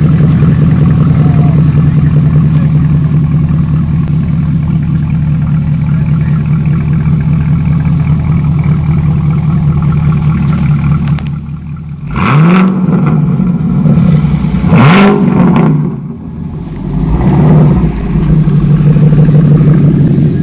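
2017 Camaro SS's 6.2-litre V8 running through a freshly installed MBRP Race cat-back exhaust: a steady, loud idle for about ten seconds, then three short revs of the throttle in the second half, each dropping back to idle.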